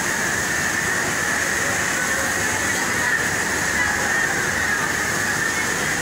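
Steady, unbroken din of a garment factory sewing floor, with many industrial sewing machines running at once as a constant mechanical hiss and hum.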